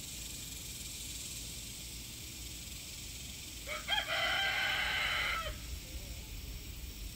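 A rooster crowing once, a single drawn-out call of almost two seconds starting about halfway in.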